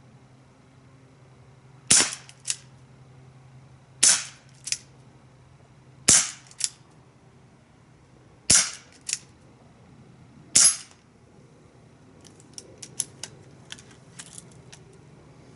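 Bear River 4-inch chrome CO2 BB revolver firing five shots about two seconds apart. Each shot is a sharp crack, and most are followed about half a second later by a fainter tick as the BB strikes downrange. After the fifth shot comes a run of light metallic clicks from handling the revolver.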